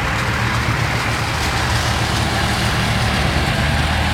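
Heavy truck's diesel engine running low and steady as the truck drives past close by, with a hiss of tyres on the wet road.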